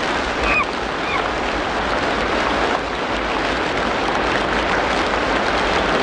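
Steady rain, an even hiss, with a couple of short bird chirps about half a second and a second in.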